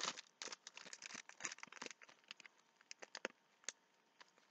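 Book parcel's packaging being crinkled and torn open by hand: a dense run of crackles for about the first two seconds, then scattered crackles and taps.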